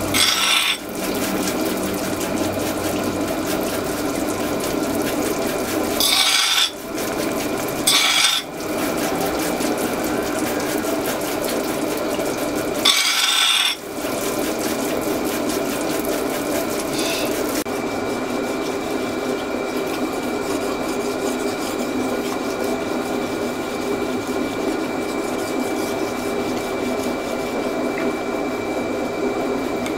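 Large rotating grinding wheel running with a steady machine hum while a knife blade is ground against it, a continuous rasping hiss. Four brief harsher hissing bursts come in the first half as the blade is pressed or shifted on the wheel.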